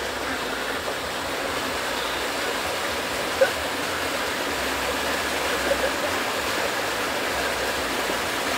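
Steady rushing and splashing of floodwater, churned up as a vehicle tows an inflatable tube through a flooded street, heard from inside the vehicle. One brief sharp sound comes about three and a half seconds in.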